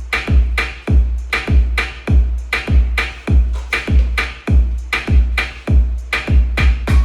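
Hip hop beat without vocals played through a JBL PartyBox 310 speaker: drum-machine hits at about two a second, each with a deep bass note that slides down in pitch.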